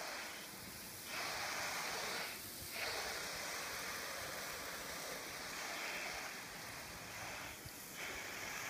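Soft-wash sprayer hissing steadily as low-pressure cleaning solution is sprayed onto vinyl siding. The spray breaks off briefly three times: about half a second in, around two and a half seconds in, and near the end.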